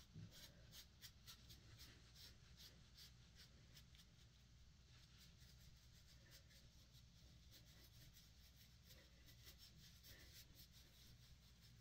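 Near silence: room tone with faint scattered ticks and light rubbing, several a second at first and thinning out later.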